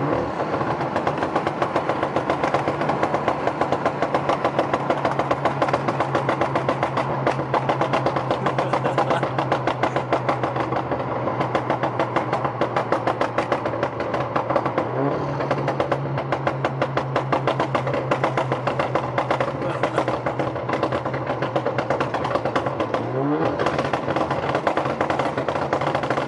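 Tuned four-cylinder exhaust of an Alfa Romeo Giulia running loud at a steady pitch, with a rapid crackle of pops laid over the tone, heard from inside the car. The pitch rises briefly about 15 seconds in and again near the end.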